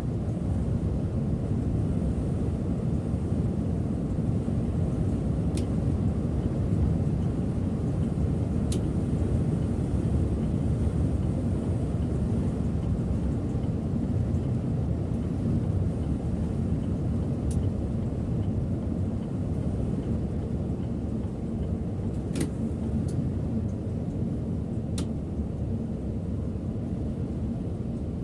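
Steady low rumble of a Setra S 531 DT double-decker bus on the move, heard from the driver's seat: engine and road noise holding an even level. A few faint clicks sound now and then.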